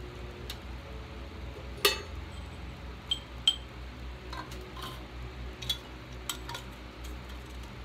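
Small metal dye tins clinking and clicking against each other as they are picked through on a metal tray: several sharp clinks, the loudest about two seconds in. A steady low hum from the irrigation pump runs underneath.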